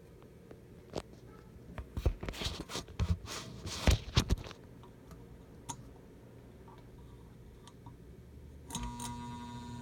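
Several sharp clicks and knocks, then near the end a ceiling fan's cast-iron spinner motor switches on with a sudden steady electrical hum of several tones: the startup harmonics of the motor as it begins to turn.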